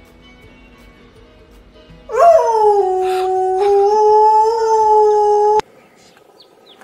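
A husky howling: one long howl that rises at the start, then holds steady for about three and a half seconds before cutting off abruptly.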